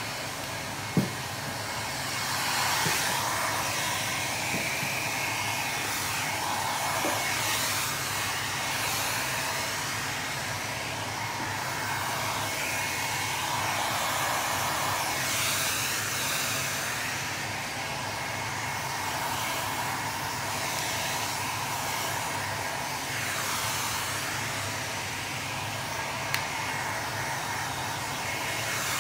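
A handheld hot-air dryer blowing steadily, drying freshly sprayed leather lacquer. Its sound wavers a little as it is moved over the surface.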